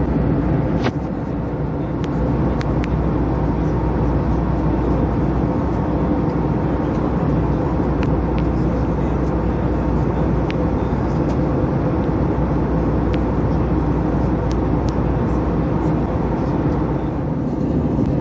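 Airbus A321 cabin noise in cruise: a steady, low-pitched rush of jet engines and airflow, with a few faint ticks.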